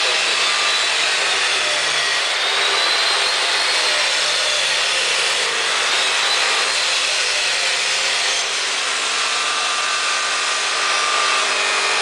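Steady loud rushing noise of a running fan or air blower, with a faint high whine wavering slightly above it.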